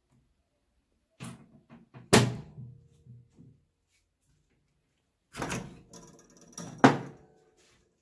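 Handling knocks on an opened-up microwave oven and its power plug: two bursts of thuds and clatter, with a sharp thump about two seconds in and another near the end.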